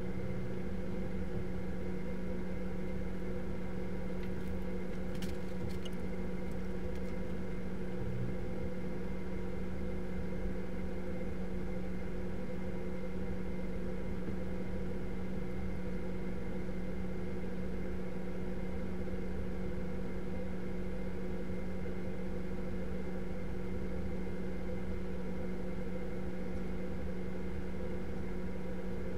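Steady machine hum with a low droning tone and a few fainter higher tones, even throughout, with a couple of faint clicks about five seconds in.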